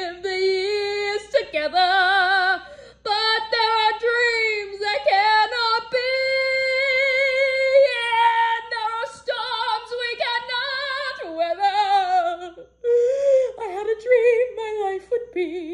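A woman singing unaccompanied in an exaggerated, showy Broadway style, holding long notes with wide vibrato and taking a couple of short breaths between phrases.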